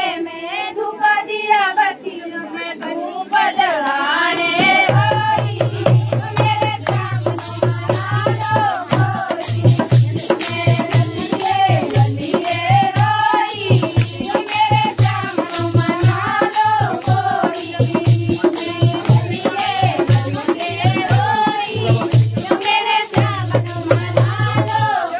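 A group of women singing a folk song. About five seconds in, a drum beat joins them, and soon after a jingling percussion rhythm; they carry on together as a lively dance song.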